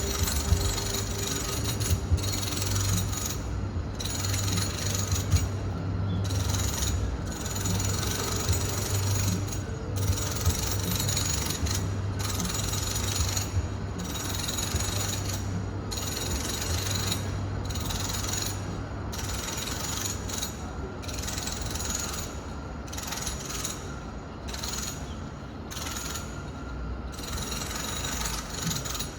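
Home renovation work heard from a distant room: a continuous mechanical racket over a low hum, with short breaks every second or two and a few sharp knocks in the first ten seconds.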